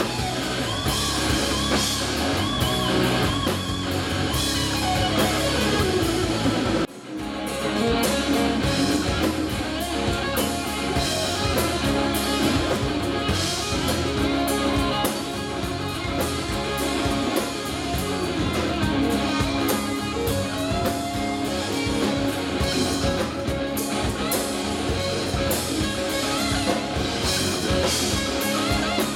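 Southern rock band playing live: electric guitar lead with bent and sliding notes over bass and drums. There is a short break in the sound about seven seconds in.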